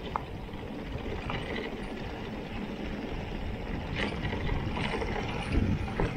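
Mountain bike rolling along a rutted dirt track: steady rumble of the tyres on the dirt, with a few short rattles and knocks from the bike over bumps, the loudest a little before the end.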